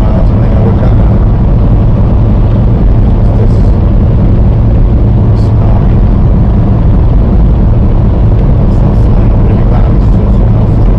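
Steady loud low drone and rumble of a semi truck driving on the road, engine and road noise heard together.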